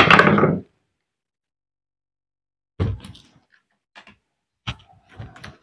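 Hand work on a demolition breaker's housing and parts: one loud clank at the start that rings on for about half a second, then a few scattered lighter knocks and clicks.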